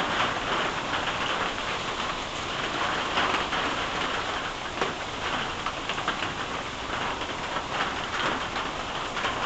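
Steady heavy rain falling and splashing, with many separate drops striking a tin roof close by.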